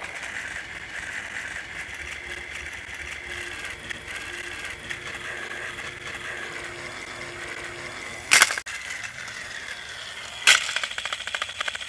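Battery-powered TrackMaster Thomas toy engine running along plastic track, its small motor giving a steady whine over the rattle of the wheels. A sharp clack about eight seconds in, and another near the end followed by a quick run of rattling clicks.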